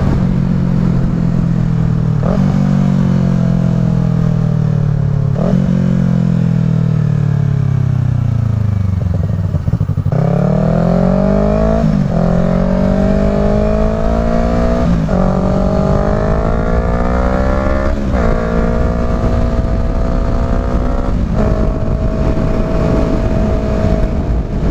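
Yamaha R3 parallel-twin engine through an M4 slip-on exhaust: revs fall as the bike slows, then about ten seconds in it pulls hard under full throttle, the pitch climbing and dropping with four quick upshifts before settling to a steady cruise. Wind rush on the helmet microphone runs underneath.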